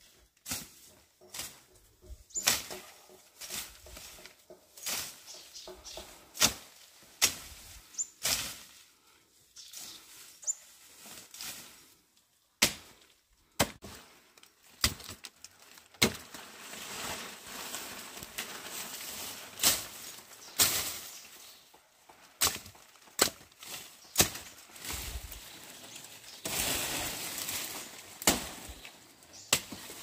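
Irregular knocks and thuds of hand work, some sharp, with scraping and rustling between them, busiest in the second half. A few short high bird chirps come in the first third.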